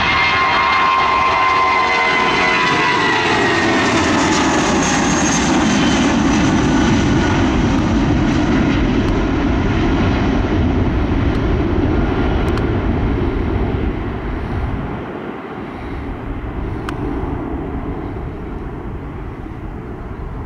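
Airbus A320's twin turbofan engines at takeoff thrust as it lifts off and climbs away: a whine that falls in pitch over the first few seconds over a steady, loud rumble, which fades from about two-thirds of the way through.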